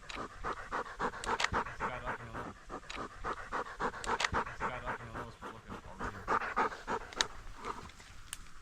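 Hunting retriever dog panting rapidly and steadily, a quick even run of breaths.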